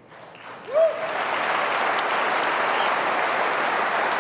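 A large audience breaks into applause about a second in, starting with a single shout, then keeps up steady, dense clapping.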